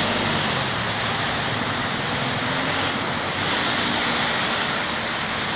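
Steady rushing outdoor background noise with a faint low hum under it and no distinct events.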